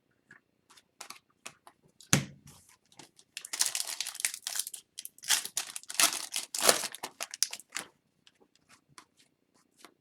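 Upper Deck hockey cards and their wrapping being handled: a run of small clicks and sharp crinkling rustles, densest in the middle, with one knock about two seconds in.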